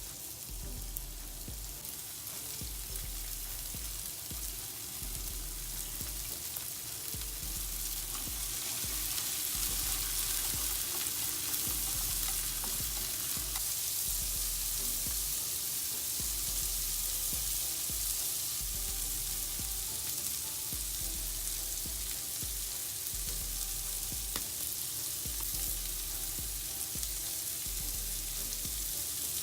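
Food frying in a pan, a steady sizzle that grows louder about eight seconds in and then holds.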